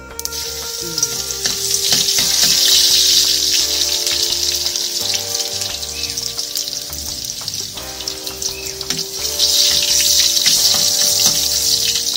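Food frying in hot oil in a pan, a continuous sizzle that swells twice, about two seconds in and again near the end.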